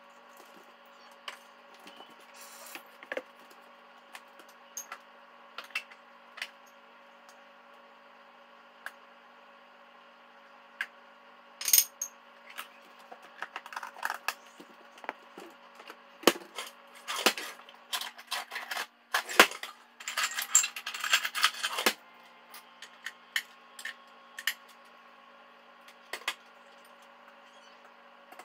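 Dishes, utensils and containers clinking and knocking on a kitchen counter in scattered clatters, with a busier run of clattering past the middle, over a steady electrical hum.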